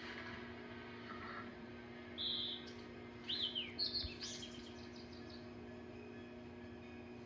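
High bird-like chirping calls: a short held chirp about two seconds in, then a run of quick falling and rising chirps around the middle, over a faint steady hum.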